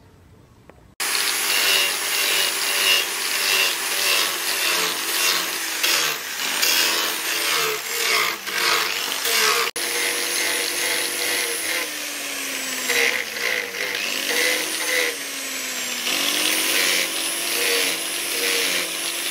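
Angle grinder starting up about a second in and grinding a steel axe head forged from leaf spring, a steady abrasive whine of disc on steel. The motor pitch sags under pressure and recovers in the second half, and the sound breaks off for an instant near the middle.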